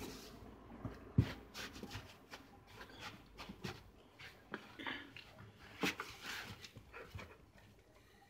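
Cardboard box and cloth being handled: irregular rustles and scrapes as a cushion is pushed into the box and the flaps and a cut piece of cardboard are moved, with a sharp thump about a second in.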